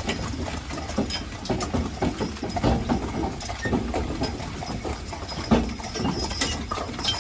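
Hooves of a pair of Haflinger horses clip-clopping as they pull a wagon uphill, an uneven run of hoofbeats over a low rumble.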